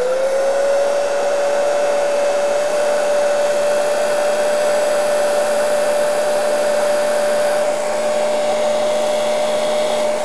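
Heat gun running, a steady fan whine over a rush of blown air, the whine rising as it spins up just at the start. It is shrinking heat-shrink tubing down over soldered motor-wire connectors on an ESC board.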